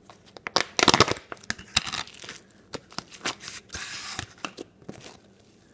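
Homemade slime mixed with broken-up packing peanuts being handled and stretched, crackling and crinkling in irregular bursts of sharp clicks.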